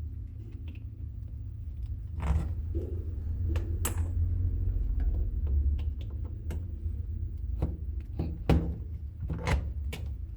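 Plastic plugs being handled and pushed into the sockets of a power strip: a series of sharp clicks and knocks over a low handling rumble.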